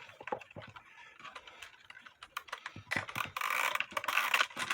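Clock weight chain rattling over the sprocket of a wooden-plate clock movement, with ratchet clicks, as the chain is pulled to wind up the weight. Scattered clicks give way to a denser rattle about three seconds in.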